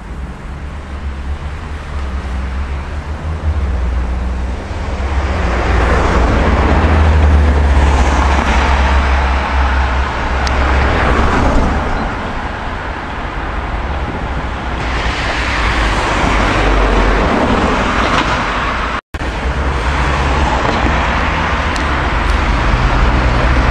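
Road traffic on a city street: car engines and tyre noise swelling and fading as vehicles pass, over a steady low rumble, with a brief cut-out about three-quarters of the way through.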